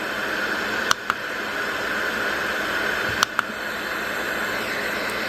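Sound machine playing a steady hiss-like noise track. Its buttons are pressed twice, each press a quick double click, about a second in and again about three seconds in.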